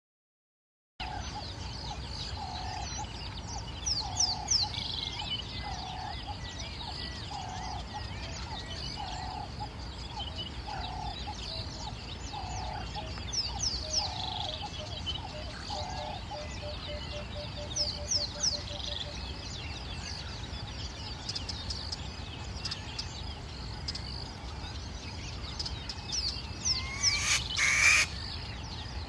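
Savanna ambience with birds calling. A low hooting note repeats about every two seconds, then speeds up into a fast run of notes that fades out, while high, quick downward chirps come now and then. A brief, loud harsh sound stands out near the end.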